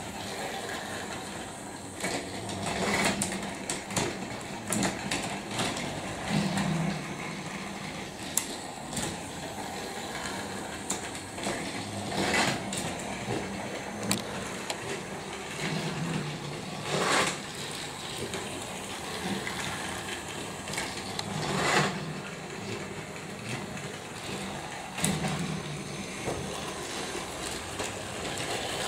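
Battery-powered plastic toy trains and playset: a small motor whirring on and off, with scattered sharp plastic clacks as the pieces are moved.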